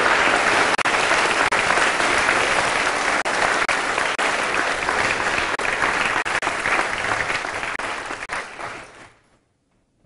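Lecture audience applauding steadily, then fading away about nine seconds in.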